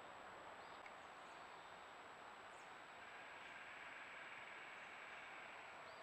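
Near silence: a faint steady hiss with a thin, high, steady whine, the background noise of a trail camera's recording in quiet woods.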